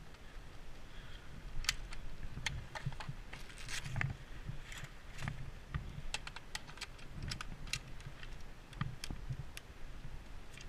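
Footsteps thumping softly at a walking pace, with many irregular sharp clicks and ticks scattered over them.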